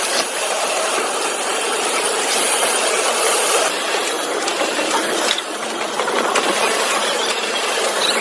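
Industrial machinery running with a steady, hissing clatter.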